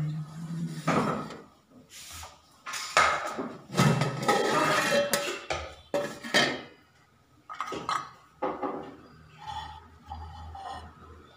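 A metal lid and spoon clatter and scrape against a large aluminium cooking pot. There are several sharp knocks and scrapes, loudest in the middle, then lighter clinks as the spoon moves through the rice.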